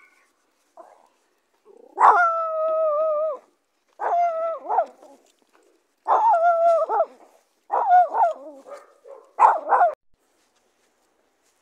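Miniature pinscher barking at other dogs in five high-pitched, drawn-out yelping barks, the first held for over a second and the rest shorter.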